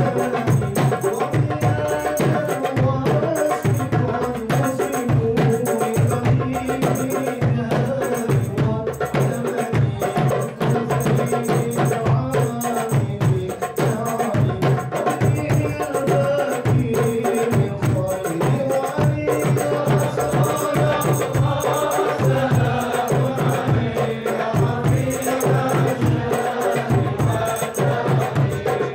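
Islamic devotional chanting by voices over a steady percussion beat.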